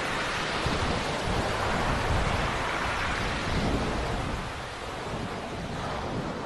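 Storm ambience: a steady rushing wash with a low rumble of thunder underneath, easing a little about four and a half seconds in.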